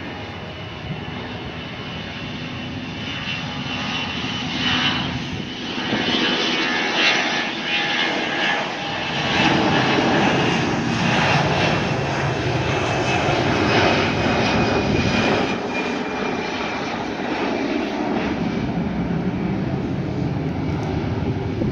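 An Allegiant Air Airbus A320-family airliner's twin jet engines at takeoff power during its takeoff roll and liftoff. A rumble with a high fan whine grows louder as the jet speeds past, peaks about halfway through, then eases slightly as it climbs away.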